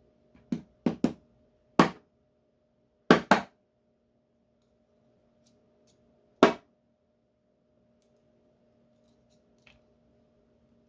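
Sharp metallic clicks and taps from small steel lock parts being handled while a pin-tumbler lock is taken apart. There are seven distinct clicks, some in quick pairs, then a few faint ticks near the end.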